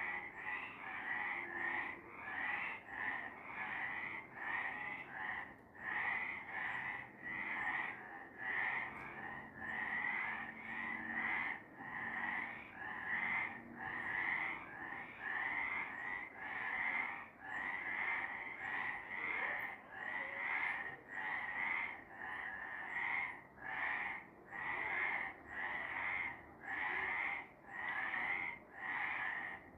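A chorus of several frogs calling, short calls repeating a little over once a second without a break.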